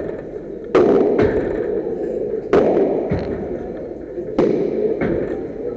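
Padel ball struck with rackets: a sharp hit about every two seconds, each followed about half a second later by a softer bounce, echoing in the enclosed court.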